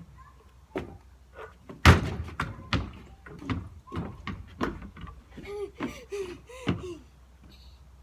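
A basketball bouncing hard on the ground: a string of irregular sharp thuds, the loudest about two seconds in.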